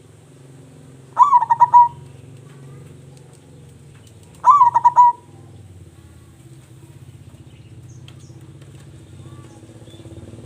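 Local zebra dove (perkutut) cooing: two short song phrases, each a quick run of notes, about a second in and again about four and a half seconds in, over a steady low hum. A frequent singer with a big voice, the kind kept as a lure bird to prompt other doves to sing.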